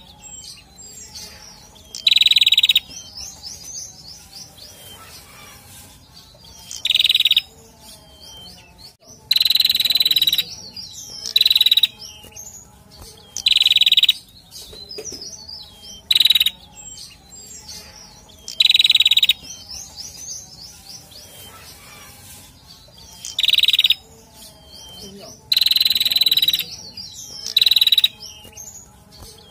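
Male prenjak (a prinia) calling: loud, harsh call phrases, each half a second to a second long, come every two to five seconds, with fainter high twittering in between.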